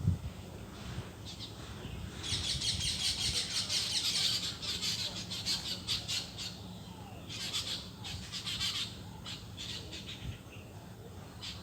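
Parrot squawking: a harsh, rapidly pulsed rasping call lasting about two seconds, followed by several shorter bouts.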